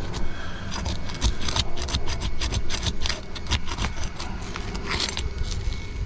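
Brittle, aged asphalt shingle crackling and tearing as it is pried up, a dense run of sharp cracks and scraping. The shingle is too thin to lift without tearing, a sign that the roof is not repairable.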